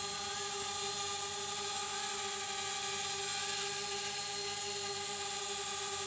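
DJI Spark mini quadcopter in flight, its small propellers giving a steady, even whine with no change in pitch.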